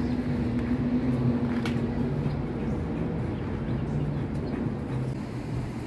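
Steady low drone of a passing vehicle engine in city ambience, its tone sliding slightly down in pitch and fading after about two seconds, over a constant low background hum.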